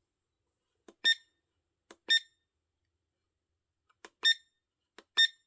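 Wireless charger alarm clock beeping once per button press: a faint click, then a short high beep, four times at uneven intervals.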